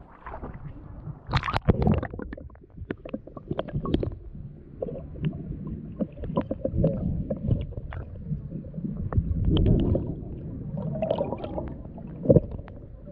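Water sloshing and gurgling around a kayak, with irregular knocks and splashes from paddling and the hull moving in the water.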